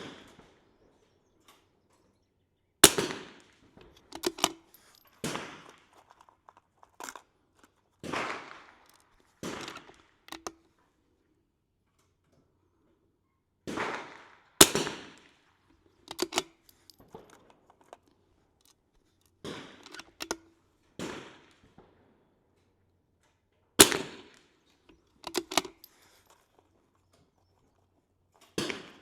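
Vudoo single-shot .22 LR rimfire rifle firing Lapua Center-X, three sharp shots spaced roughly ten seconds apart. Between the shots come fainter clicks and handling noises.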